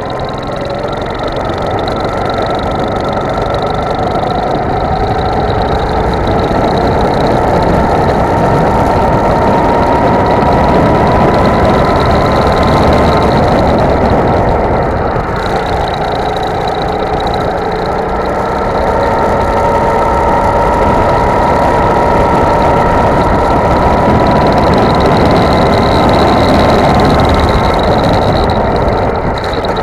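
Go-kart engine at full throttle, heard onboard. Its pitch climbs slowly as the kart gathers speed, eases off around a corner about halfway through, then climbs again.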